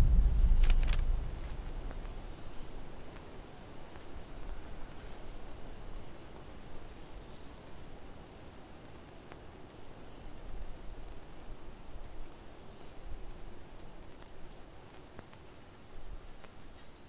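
Faint, steady chirring of insects, with a short chirp repeating about every two and a half seconds. A low rumble dies away in the first two seconds.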